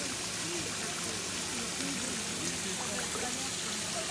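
Steady rushing and splashing of water at a koi pond, with the koi churning the surface and a small waterfall running. Indistinct voices are faint in the background.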